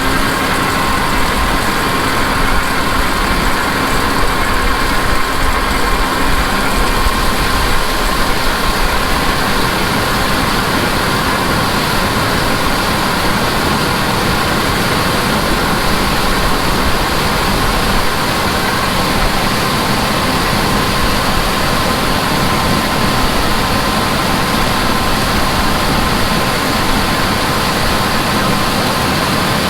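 Heavy diesel farm machinery engine running steadily, with a constant high whine over it.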